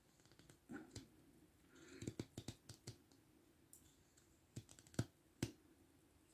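Pocket-knife blade making small undercuts in a thin wood branch: a series of faint, sharp clicks and snicks as the blade bites and chips come away, in two clusters, about two seconds in and again about five seconds in.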